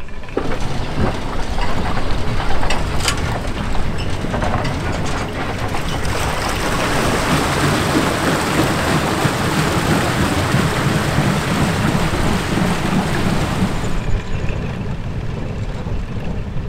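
Empty steel boat carriage of an Elbląg Canal inclined plane rolling on its rails, with its wheels clanking and knocking. It then runs into the canal with a steady rushing and splashing of water around its wheels and frame. About two seconds from the end the splashing gives way to a fainter low noise.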